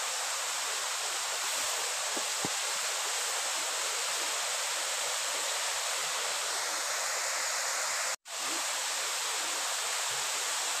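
Steady rush of a waterfall, cutting out for an instant about eight seconds in.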